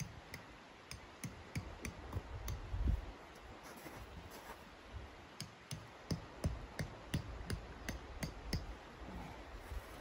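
Light, sharp taps with a dull thump under each, coming in two runs, the second a steady three or so a second, as a tent peg is worked in at the base of a tent in snow. A heavier thump comes about three seconds in.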